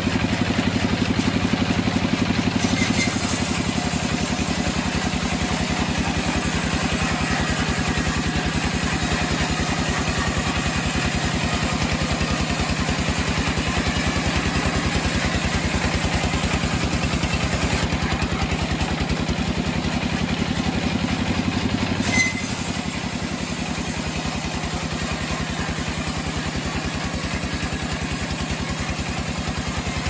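Homemade band sawmill running steadily under load as its band blade cuts lengthwise through a mahogany beam, a continuous engine-like drone with a fast even pulse. A short knock comes about 22 seconds in, after which it runs a little quieter.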